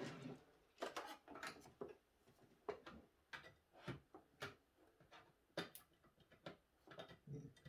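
Faint, irregular clicks and light knocks of hands handling computer hardware and cables.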